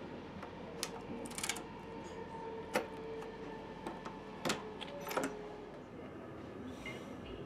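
Sleeper-compartment door lock and key card clicking and rattling as the card is worked at the lock and handle: a handful of sharp clicks, a short rattle about a second in, over a steady electrical hum from the carriage.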